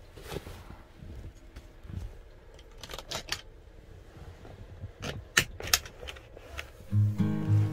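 Sharp plastic clicks and knocks of a hand working a motorhome window's pull-down blind and frame: a couple about three seconds in, then a quick cluster about five seconds in. Acoustic guitar music starts near the end.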